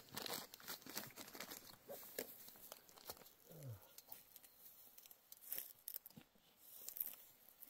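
Faint, irregular crinkling and rustling with scattered small clicks, like something being handled or torn, and one short low sound falling in pitch about three and a half seconds in.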